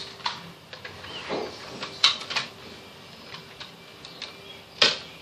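Scattered sharp clicks and knocks from Nerf Dart Tag pistol blasters being fired and handled, with the loudest click near the end.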